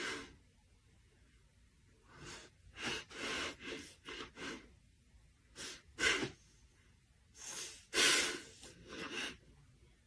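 A series of short, breathy huffs and snorts, coming in irregular bursts with quiet gaps between.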